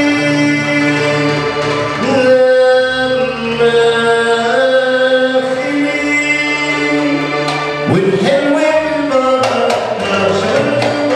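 Live Arabic music: a man singing into a microphone over held keyboard notes, with a hand drum and a riq tambourine. The sharp drum strokes come thicker near the end.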